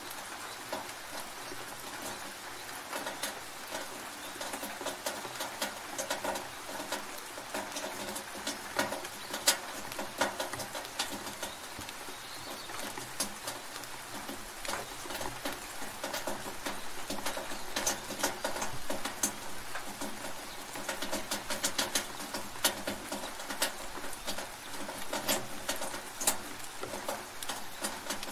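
Rain running into a gutter: a steady hiss of rain with many irregular sharp drips, one louder drip about a third of the way in.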